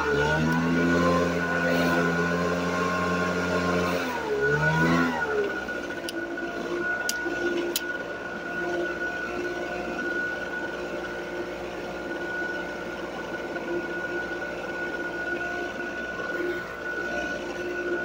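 Two-stroke Echo leaf blower throttled up to full speed and held there for about four seconds, then dropped back to a steady idle with a thin constant whine.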